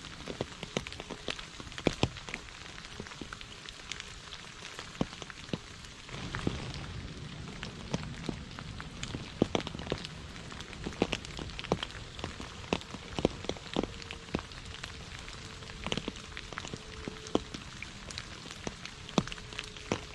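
Steady rain falling on puddles and wet leaves, with many separate drops plinking into the water. A low rumble swells about six seconds in and fades over the next few seconds.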